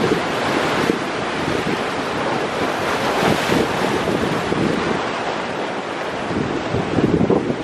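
Wind buffeting the microphone over the wash of ocean surf against rocks, steady throughout with a few stronger gusts.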